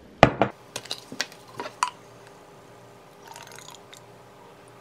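A glass measuring cup and a plastic bottle being handled: two sharp knocks near the start, then a few lighter clicks. A little past three seconds in there is a faint trickle as liquid hand sanitizer is poured from the cup into the bottle.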